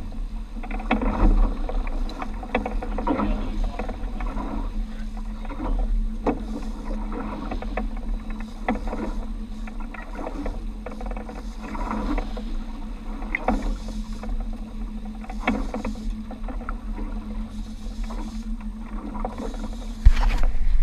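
Outboard motor running steadily at low speed, with water splashing and slapping against the hull in irregular spurts. A sharp, loud knock comes near the end.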